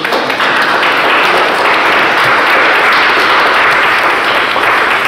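A small audience applauding, many hands clapping together, starting suddenly and holding steady.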